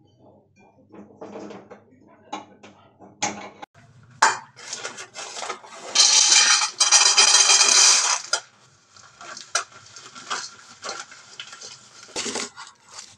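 Dry ingredients poured from a crinkling plastic bag rattle into a steel plate, a dense rattle that is loudest for about two seconds midway. Scattered knocks and clinks of metal kitchenware come before and after it.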